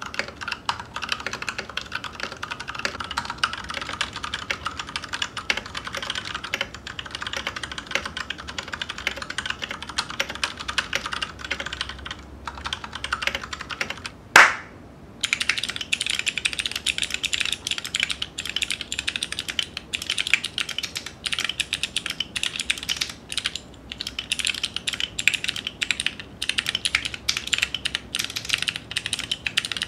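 Fast continuous typing on a mechanical keyboard, keycaps clacking on every keystroke. About halfway there is one loud sharp hit, and after a short pause the typing resumes sounding brighter and higher-pitched.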